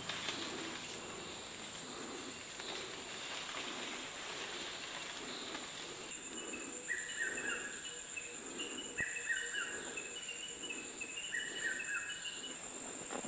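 Rainforest insects droning steadily on one high note, stronger from about halfway. Three times in the second half comes a short falling call.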